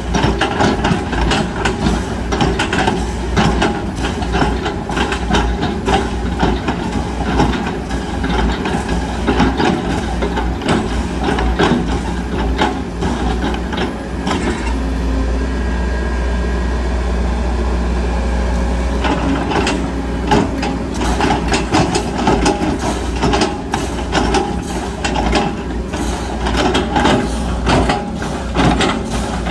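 Sumitomo hydraulic excavator's diesel engine running under load, with frequent clattering knocks from the machine at work. About halfway through the knocks stop for several seconds, leaving a smoother, steady engine and hydraulic drone, before the clatter resumes.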